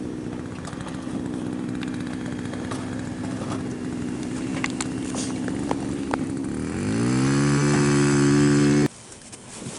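A small gas engine running at a steady speed, then revving up sharply about two-thirds of the way in and cutting off abruptly near the end.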